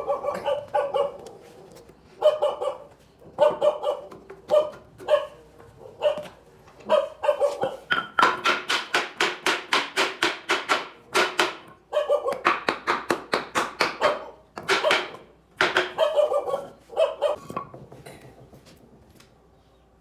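A dog barking over and over, in quick runs of short barks at about four a second around the middle, dying away near the end.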